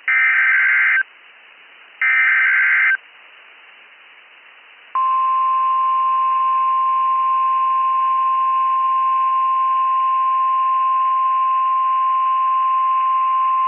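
Two bursts of SAME digital header tones, each about a second long with a second's gap, the rasping data signal that opens a NOAA Weather Radio emergency alert. About five seconds in, the steady single-pitch 1050 Hz weather radio warning alarm tone starts and holds, the signal that a warning-level alert, here a high wind warning, is about to be read.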